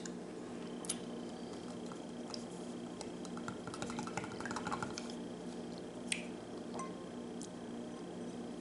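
A thin stirrer stirring eggnog and rum in a stemmed glass, with a quick run of small clinks against the glass about three to five seconds in and a few single sharp taps before and after.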